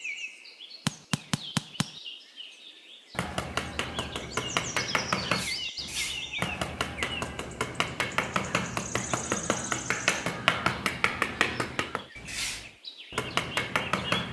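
Small birds chirping over a quick run of sharp taps, about five a second, like light tapping on wood or small nails. A few separate taps come first, then the steady run starts about three seconds in and stops about two seconds before the end.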